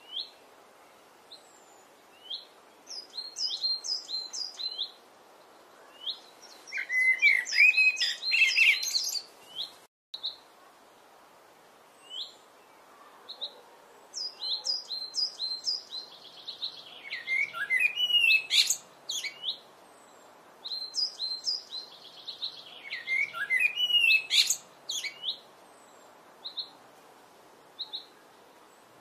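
Common blackbird singing: three loud, long phrases of warbling and high squeaky twittering, with runs of short high chirps in the gaps between them.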